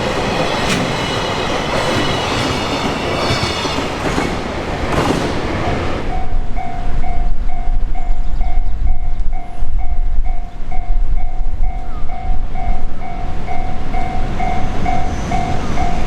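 A train passing the crossing, its wheels clattering over the rail joints with high-pitched squeal, cuts off about six seconds in. From then on a Japanese level-crossing electronic warning bell rings loudly and evenly, about two strikes a second.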